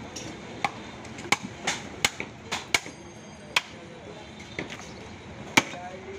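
Heavy butcher's knife chopping through beef onto a wooden log block: about nine sharp, irregularly spaced chops, the loudest about five and a half seconds in.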